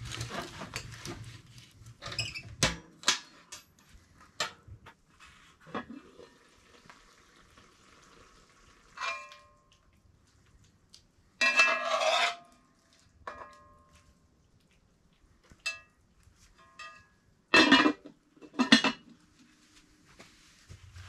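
Cast iron Dutch oven and ladle clanking: a string of separate metallic knocks and clanks, some ringing briefly, as the lid comes off and stew is ladled into a metal bowl. In the first seconds, knocks of wood being loaded into the wood stove's firebox.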